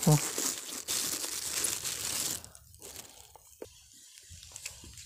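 Close rustling and crinkling for about two and a half seconds, as grass and ferns brush against the microphone, then quieter with a few faint clicks. A brief low sound comes right at the start.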